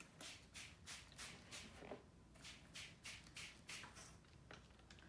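A hand spray bottle squirting in a quick series of short, faint hissing bursts, about three a second, over the wet watercolor paper.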